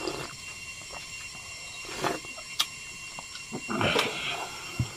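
Close-up eating sounds: a slurp of broth from a steel spoon at the start, then a few sharp clicks and mouth sounds, with a longer wet burst about four seconds in.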